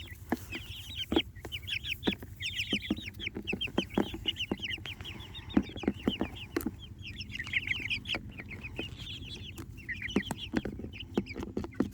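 A flock of young Jersey Giant meat chickens cheeping and clucking, many short high chirps overlapping, with scattered sharp taps among them.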